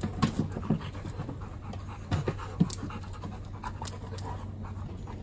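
Dogs panting, with a few short knocks and taps scattered through.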